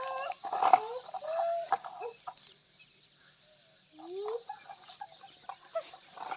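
Short animal calls, several rising in pitch, with clicks between them, in two bouts separated by a quiet gap of about two seconds; no engine is heard.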